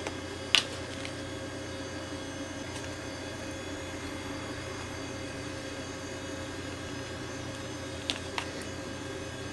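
Steady electrical hum, with one sharp plastic click about half a second in and two lighter clicks near the end as a small plastic candy mold is handled and opened.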